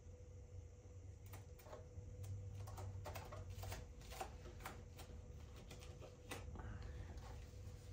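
Faint, scattered crinkles and light taps of a duct tape strip being handled and pressed around the edge of a plastic fingerboard ramp.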